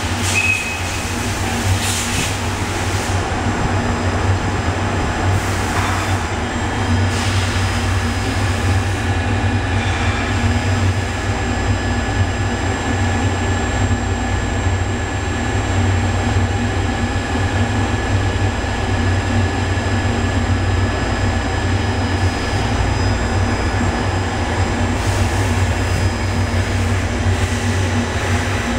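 Kia SKT-21LM CNC turning center running while machining a part, a steady low hum with thin high-pitched whines over it. A few brief clicks come in the first couple of seconds.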